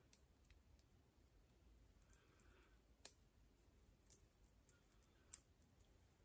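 Near silence broken by a handful of faint, sharp clicks of jewellery being handled as a watch is taken off the wrist and set aside.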